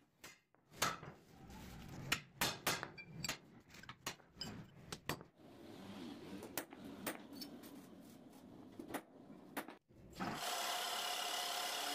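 Hammer tapping a center punch on 3/16-inch steel plate, marking the hole centres for drilling: a long run of sharp, irregular metallic taps. Near the end a drill press motor starts and runs steadily with a thin whine.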